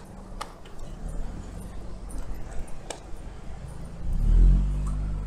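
A motor vehicle's engine passing close over steady road rumble. It swells to its loudest about four and a half seconds in. There are a couple of sharp clicks earlier.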